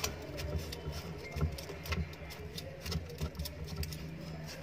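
Enamelled copper winding wire being worked by hand into the slots of an electric motor stator: scattered light clicks and rustles of the wire, over a low steady hum.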